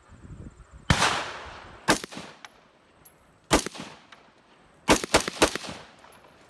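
Six gunshots at a shooting range, unevenly spaced. The first is the loudest, with a long fading tail, and the last three come in quick succession.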